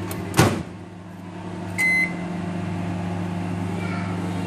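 Dawlance convection microwave oven running with a steady low hum, a short clunk near the start and a single keypad beep about two seconds in.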